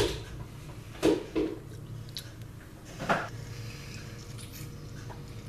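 A few short slurps of a milkshake being drunk through a straw, as separate sucks spread over a few seconds.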